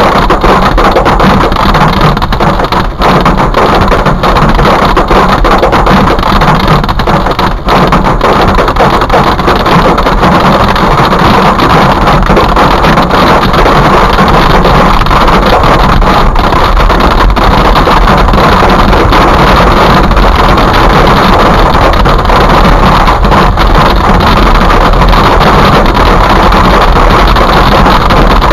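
Hail and rain pelting the roof and windshield of a moving car, heard from inside the cabin as a loud, dense, unbroken clatter of countless small impacts.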